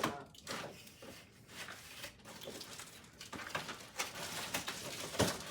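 Scattered light knocks, clicks and rustles of lamp parts and packaging being handled while unpacking, with a sharper knock near the end.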